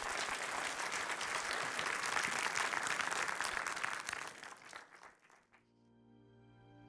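Audience applauding, the clapping fading out about five seconds in; soft music starts faintly near the end.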